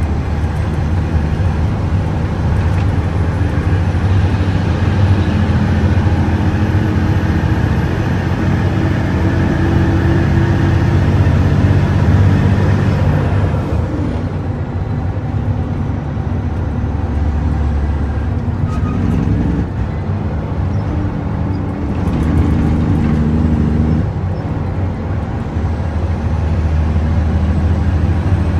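Heavy diesel dump truck's engine heard from inside the cab, pulling along the road. Its note builds with a faint high whistle rising over it, drops off about thirteen seconds in, then builds again later.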